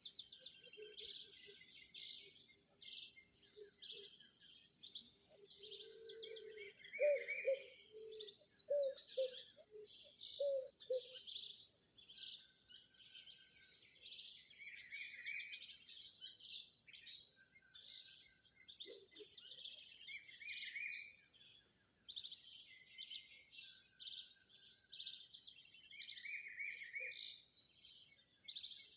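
Dawn chorus in an open field: a steady high-pitched insect trill runs under many birds chirping and singing. About seven seconds in, a lower call repeats six or seven times over some four seconds; these are the loudest sounds.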